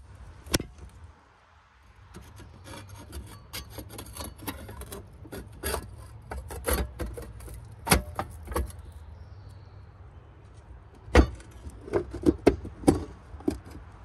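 Handling noise: a sharp click about half a second in, then scattered clicks, scrapes and rubbing, with a louder cluster near the end, over a low steady hum.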